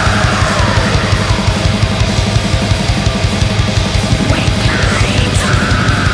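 Metal music: fast, dense drumming with rapid bass-drum strokes under heavy guitars. A high melodic line slides downward over the first second or so and climbs again about five seconds in.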